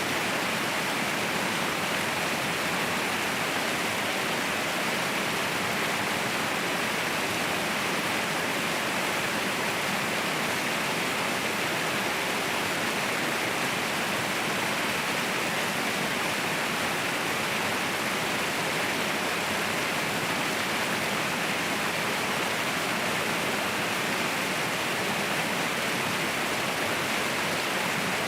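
Waterfall pouring, a steady, unchanging rush of falling water with a hissy, bright edge.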